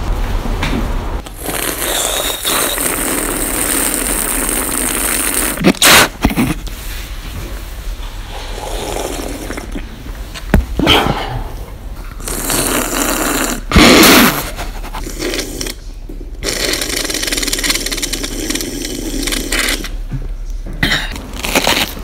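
A person eating noisily on purpose: loud crunching and chewing, with a few sudden loud noises along the way.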